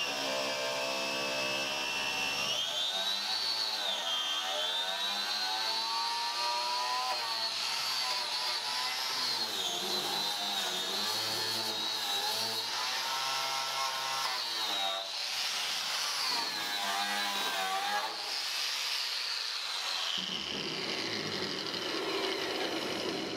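Angle grinder spinning a non-knotted wire wheel against a car body's sheet-metal seams, scrubbing out the seam sealer. Its motor whine keeps rising and dipping in pitch as the wheel is pressed in and eased off.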